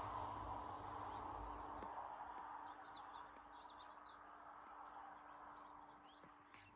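Faint bird chirps, scattered through the middle, over a steady rushing background that slowly fades away.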